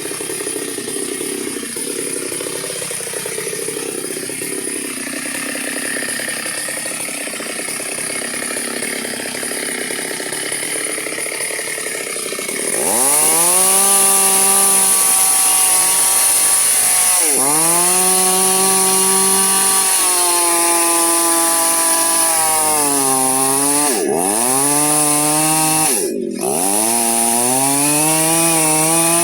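A two-stroke chainsaw cutting a sengon log. A quieter, steady mechanical noise comes first. About halfway through the saw runs at full throttle, and its engine pitch dips and recovers about four times as it bogs under load in the cut.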